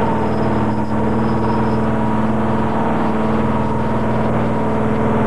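Boat's engine running steadily under way, a constant pitched hum with no change in speed.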